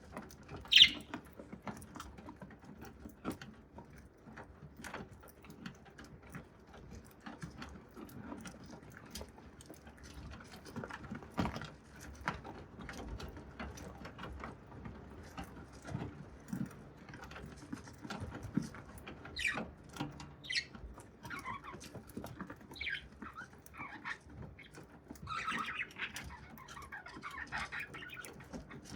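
Budgerigar pecking at and cracking grains: a dense run of small, irregular clicks and taps. Short chirps join in over the second half, with a patch of soft chatter near the end.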